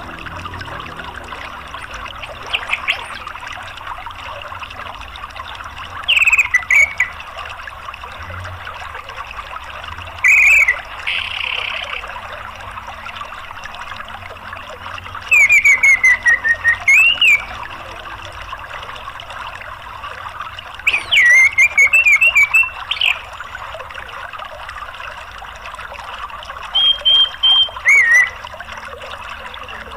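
Orange-headed thrush song: about six short twittering phrases a few seconds apart, several with quick falling trills, over the steady rush of a stream or waterfall.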